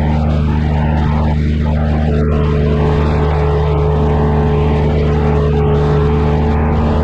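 Compact diesel construction machine running steadily under work, with a steady higher whine joining about two seconds in.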